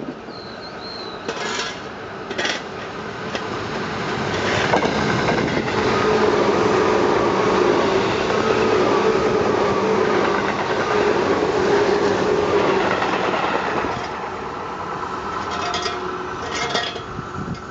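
Tobu 9000 series electric train on an express run, giving two short horn blasts as it approaches. Its running noise then builds and is loudest as the cars pass close by, with wheels clacking over rail joints, and fades with a few last clacks.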